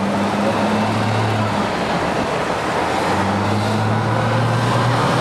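City street traffic noise, with a heavy vehicle's engine humming low and steady for about the first second and a half and again from about three seconds in.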